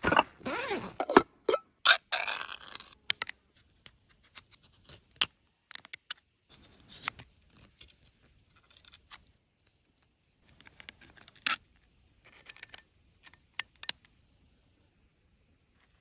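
A bag set down and handled on dry leaves, with loud rustling through the first few seconds. Then a knife scraping and cutting through a thin plastic lid, with scattered clicks and scrapes.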